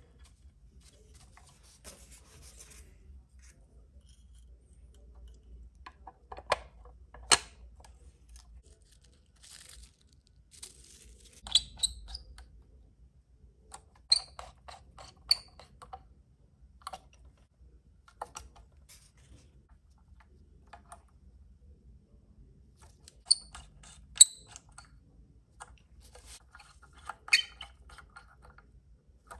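Scattered clicks, taps and rustles of small parts and tools being handled while a model is assembled, a few sharp knocks ringing briefly.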